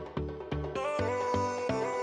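Background music with a steady beat: held melody notes over a low pulse about three times a second.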